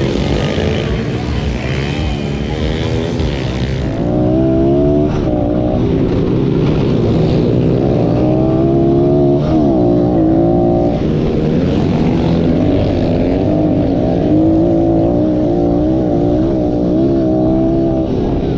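Pit bike engine racing flat out, heard up close from the bike itself from about four seconds in; its pitch climbs and drops again and again as the rider opens and closes the throttle. Before that, the sound of the bikes is more distant and mixed with more hiss.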